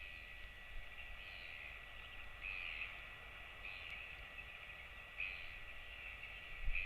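Short high chirps repeating about every second and a half, over a low rumble and a faint steady whine.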